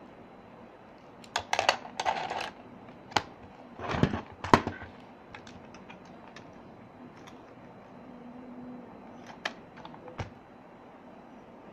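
Hard plastic pencil box being handled, giving sharp clicks and short clatters of plastic parts. Most of them come in the first five seconds, the loudest bunch about four seconds in, with two more clicks near the end.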